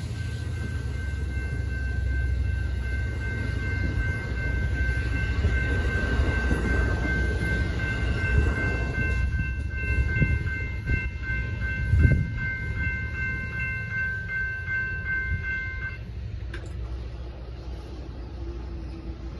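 Railroad crossing bells ringing rapidly and steadily while bi-level passenger cars rumble past on the rails and fade away. There is a single thump about twelve seconds in, and the bells cut off suddenly about three-quarters of the way through as the gates begin to rise.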